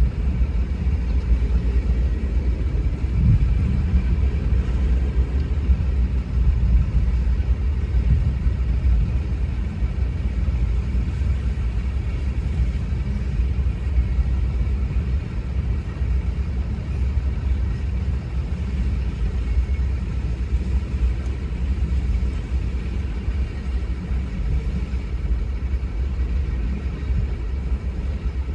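Freight train cars rolling through a street grade crossing: a steady low rumble of steel wheels on the rails.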